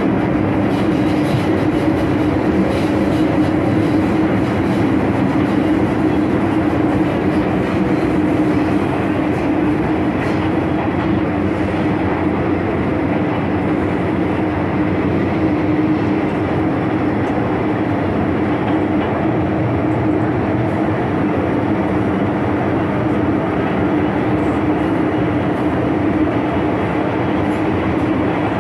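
MTR Tsuen Wan line M-Train (Metro-Cammell electric multiple unit) running steadily between stations, heard inside the carriage: an even rumble of wheels and running gear with a constant low hum.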